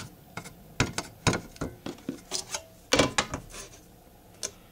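Irregular small clicks and taps as small metal test plates with bonded silicone beads are handled and set down on a hard surface.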